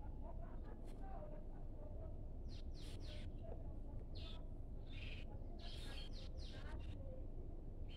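Graphite pencil scratching on drawing paper as section hatching lines are drawn along a set square: short, hissy strokes one after another in irregular runs, over a steady low hum.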